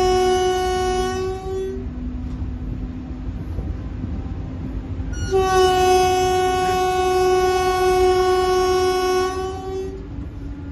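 Locomotive horn sounding in two long, steady blasts, one ending about two seconds in and another from about five seconds in to about ten seconds, over the low running rumble of the train.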